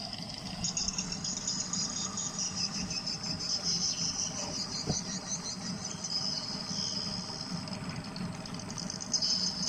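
A chorus of insects keeps up a steady, high-pitched pulsing buzz, with a single knock about five seconds in.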